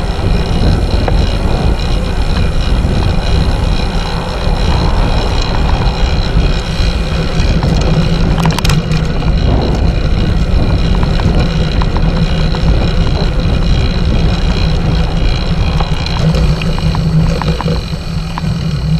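Steady wind and road noise from a moving road bicycle, heard through a handlebar-mounted camera's microphone, with one sharp knock about eight and a half seconds in.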